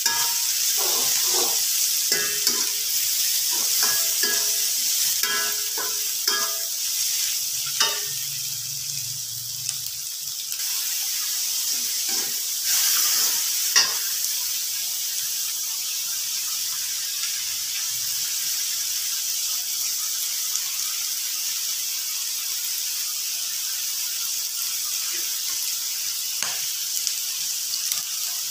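Sliced vegetables sizzling in hot oil in a steel wok, with a metal spatula scraping and clinking against the pan in quick stirring strokes over the first several seconds. After that the sizzling runs on steadily, with an occasional knock of the spatula.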